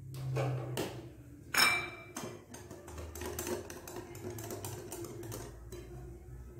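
Wire whisk clicking against the sides of a glass bowl, about five quick taps a second, while flour is beaten into a liquid batter. A single sharp, ringing clink on the glass comes about one and a half seconds in.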